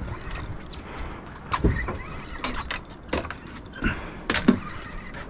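Wind and sea noise aboard a small boat, broken by a string of short, irregular whirs and clicks from spinning reels being worked against hooked fish.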